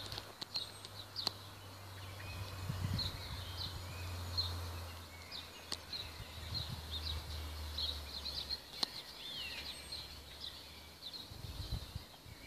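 Outdoor birdsong: many small birds chirping and singing in short repeated phrases. A low steady hum runs underneath until near the end, with a few sharp clicks.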